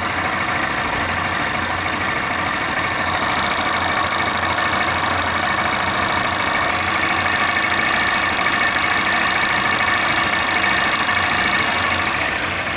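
Honda Bros 160's single-cylinder air-cooled engine idling steadily, a continuous even running sound. The owner reports the valves tapping, a noise that comes and goes and is not loud at this moment.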